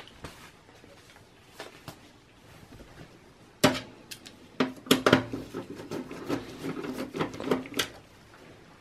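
Screwdriver turning out the screws of a desktop PC's optical drive, clicking and tapping against the steel drive cage. There are a few faint clicks at first, then a busy run of sharp metallic clicks and knocks from a few seconds in until near the end.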